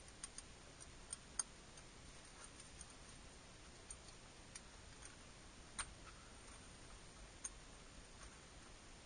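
Faint, irregular small clicks and taps of a screwdriver and small screws against the aluminum bezel and its plastic housing, about a dozen in all, the sharpest about a second and a half in and just before six seconds in.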